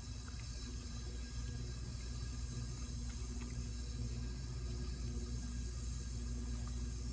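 Steady background hum and hiss, with a few faint, light ticks of metal tweezers touching the stainless steel caseback of a watch.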